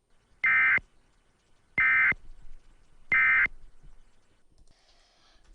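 Emergency Alert System end-of-message code: three short, identical bursts of buzzy digital data tone, about 1.3 seconds apart. They are the SAME-code bursts that close an alert.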